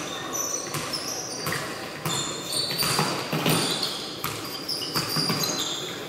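Basketball game sounds: the ball bouncing on the court in repeated knocks, with many short, high sneaker squeaks from players' shoes on the floor, in a reverberant gym hall.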